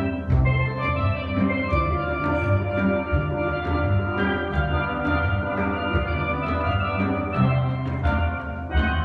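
A steel band playing a soca tune: many quickly struck steelpan notes in the melody over the deep, sustained notes of bass pans.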